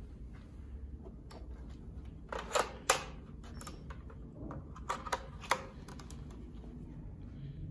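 Sharp plastic clicks and knocks as a Roboclean mini power nozzle is fitted onto a vacuum cleaner's hose handle and its cable plugged in: a pair of loud clicks about two and a half to three seconds in, and a few more around five seconds in.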